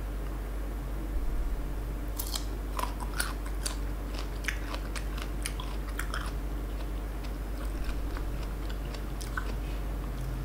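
Close-up crunching and chewing of raw sour green mango dipped in sweet fish-sauce dip: a run of crisp, sharp bites and crunches starting about two seconds in and easing off near the end.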